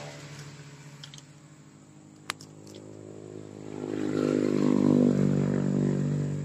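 A motor engine running steadily, growing louder about four seconds in and then fading, with one sharp click a little past two seconds.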